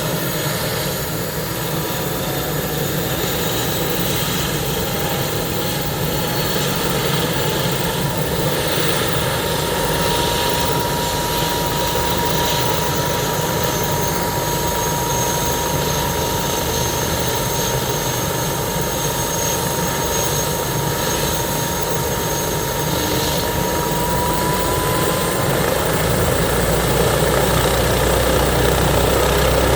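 Airbus H145 D3 helicopter with its twin turboshaft engines and five-blade rotor running on the ground before takeoff. There is a steady rotor noise under a turbine whine that rises in pitch over the first several seconds and then holds, and the low rumble grows stronger near the end.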